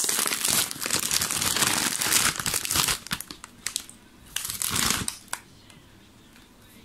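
Foil-lined potato chip bag being pulled open, crinkling loudly for about three seconds, then a few shorter rustles as the bag is handled before it goes quiet.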